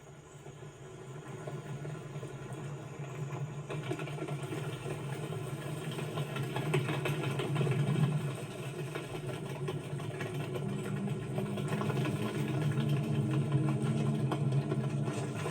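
Low, steady droning buzz of a swarm of grasshoppers' wings, a film sound effect, growing gradually louder as the swarm draws near.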